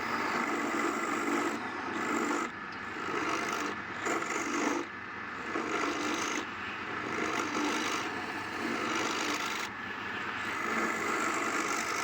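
Palm wood bowl spinning on a wood lathe while a tool scrapes against the wood in repeated passes, each lasting a second or two with short breaks between.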